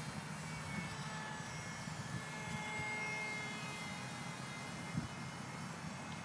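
Motor of a scratch-built RC model jet running, a faint steady whine that drifts slightly in pitch over a low rumble. There is a brief thump about five seconds in.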